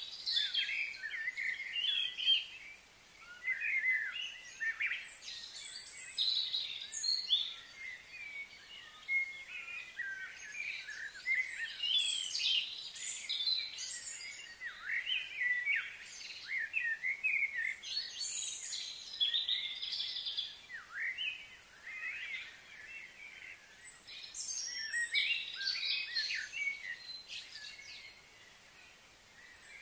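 Birds chirping and singing, many quick overlapping calls with a few brief lulls, over a faint steady high hiss.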